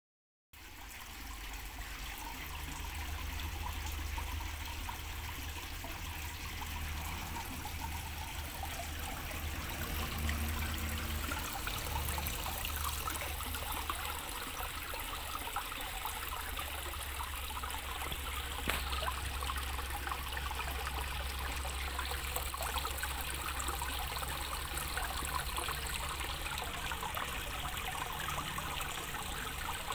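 Water trickling and splashing steadily as thin streams fall from pipe outlets into a small planted pond, with a steady low rumble underneath.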